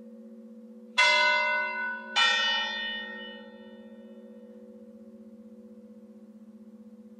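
A large bell struck twice, a little over a second apart, each strike ringing out and fading over a couple of seconds. Underneath, a steady, slightly wavering low hum carries on throughout.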